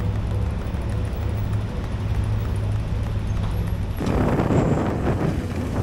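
Adventure motorcycle engine running at a steady low speed with an even hum. About four seconds in, the sound changes suddenly to a louder, rougher rumble.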